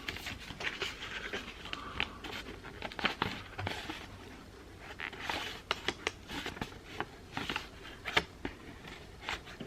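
Handling of a cardboard box set's packaging: rustling and scraping with many scattered sharp clicks and taps as the contents are worked back into the box.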